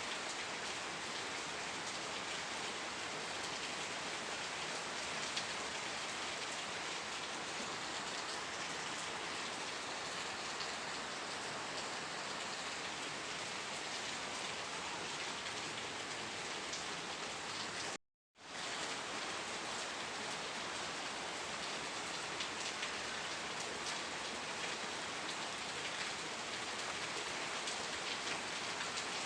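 Steady rain falling and pattering on a surface. About two-thirds of the way through, the sound cuts out to silence for a split second, then comes straight back.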